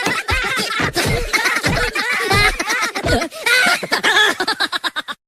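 Voices sliding sharply up and down in pitch, ending in a rapid stutter of short bursts.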